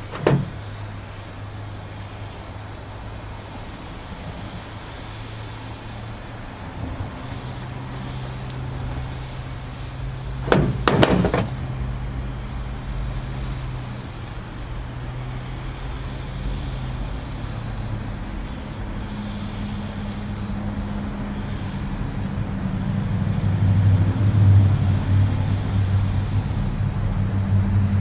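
Oxy-acetylene torch flame heating the steel eye of a control arm to break the bond of the old rubber bushing, over a steady low hum that grows louder in the last few seconds. Sharp knocks at the very start and a doubled knock about eleven seconds in are the loudest sounds.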